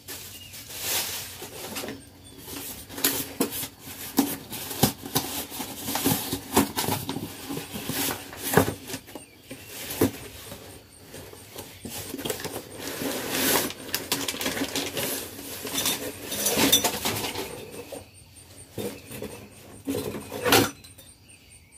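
Cardboard box and plastic packaging being opened and handled while a corrugated rubber hose with metal end fittings is unpacked: irregular rustling, crinkling and small clicks and clatters.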